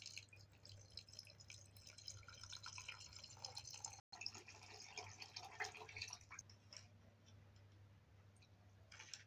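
Water poured from a kettle onto raw rice in a pot: a faint splashing trickle that breaks off briefly about four seconds in and dies away about seven seconds in. A low steady hum lies underneath.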